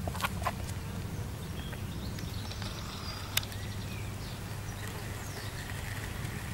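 Outdoor ambience: a steady low rumble with faint high chirps. There are a few light clicks just after the start and a single sharp click about three and a half seconds in.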